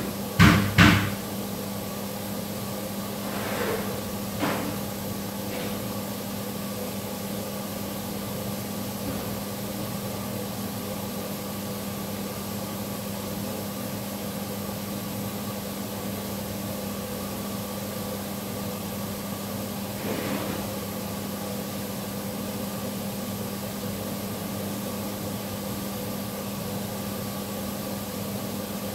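A steady mechanical hum with several even tones, broken by two loud knocks in the first second and fainter knocks around four and twenty seconds in.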